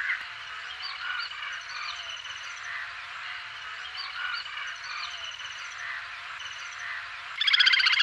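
Little grebe calling: scattered short notes and thin, rapid high pulsed notes, then about seven and a half seconds in a loud, fast trill breaks out.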